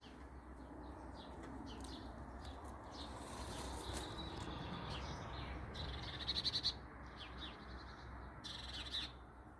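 Birds singing and chirping, with many short high calls and a fast trill a little past halfway, over a steady low background hum.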